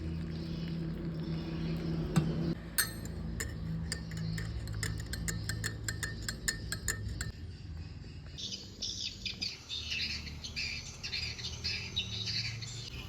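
A steady low hum, then a run of quick, evenly spaced taps, then birds chirping through the last few seconds.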